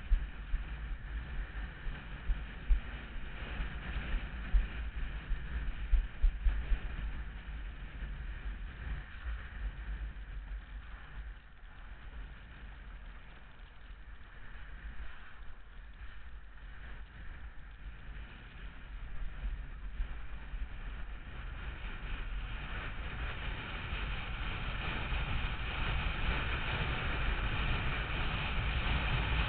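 Wind buffeting the microphone over rushing water during a speed-sailing run, with gusty thumps early on. The hiss of wind and spray builds and grows louder over the last several seconds.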